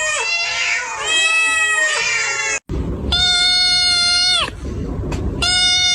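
Cat meowing: a run of four long, drawn-out meows, the last two held at a steady pitch. There is an abrupt brief silence between the second and third meows.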